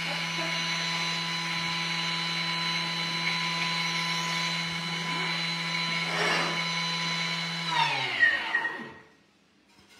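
Thermomix TM6 running at speed 10, its blade grinding granulated sugar into icing sugar: a steady motor whine that winds down with falling pitch about eight seconds in and stops.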